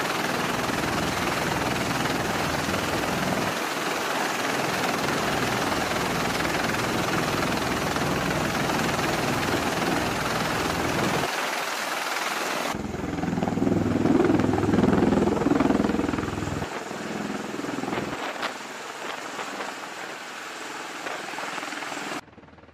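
Marine MV-22 Osprey tiltrotor aircraft running on a ship's flight deck: a steady, loud turbine-and-rotor noise. About thirteen seconds in it changes abruptly to a louder, deeper rotor sound that fades away, and the level drops sharply near the end.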